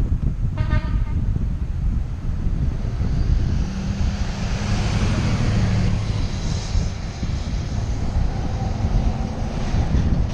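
Wind buffeting the microphone of a camera on a moving bicycle, a steady low rushing. A short pitched toot sounds about half a second in, and through the middle a passing vehicle's hum and tyre hiss swell up and fade.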